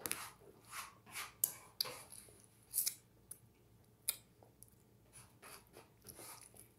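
Faint, crisp crunching and clicking of a macaron being bitten and chewed close to the microphone, in short irregular strokes.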